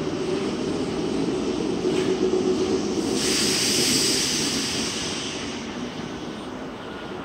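A Nagoya Municipal Subway N3000-series car standing at the platform, its onboard equipment humming steadily. About three seconds in, a burst of hiss rises and fades over the next two seconds, and the overall sound then settles lower.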